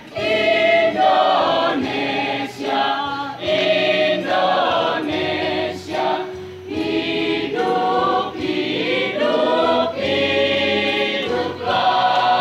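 A mixed school choir of teenage boys and girls singing an Indonesian patriotic song, in sung phrases with short breaks between them.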